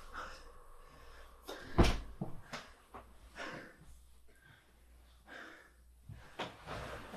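A single sharp thump about two seconds in, among fainter bumps and rustles.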